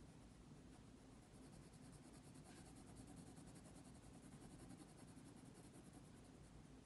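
Faint, soft scratching of a 0.5 mm mechanical pencil shading on drawing paper, pressed a little harder to darken the shadowed areas.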